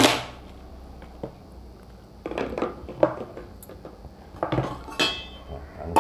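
Dried bottle gourd's hard shell cracking and being pried apart by hand, with one sharp crack at the start, then scattered crackling and the rattle of dry seeds and shell pieces on a tiled floor.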